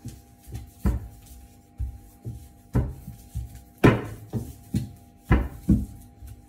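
A drink can used as a rolling pin knocking and rolling against a wooden board while dough is rolled out: about a dozen sharp knocks at irregular spacing, roughly two a second, the loudest about four seconds in.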